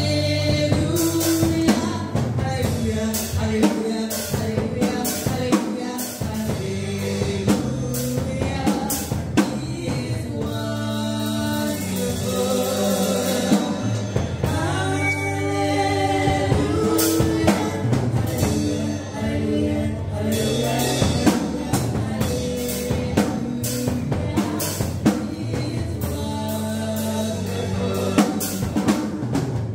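A church praise team of women singing a gospel song into microphones, over a steady drum beat and bass.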